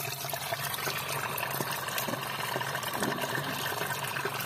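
Water gushing steadily from a flexible hose outlet and splashing onto the ground, pushed by a 12-volt DC water pump. A steady low hum from the pump running sits under the splashing.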